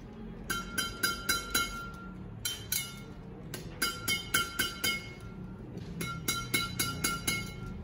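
Freshly strung badminton racket string bed, a mix of Yonex BG80 Power and Exbolt 63 strings at 28 lbs, slapped with the palm to test its sound. It comes in four quick runs of three to seven taps, and each tap gives a bright, high, ringing ping.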